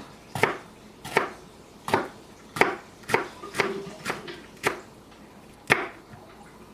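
Knife chopping a jalapeño pepper on a cutting board: about nine sharp, separate strikes, roughly one every half to three-quarters of a second, stopping about a second before the end.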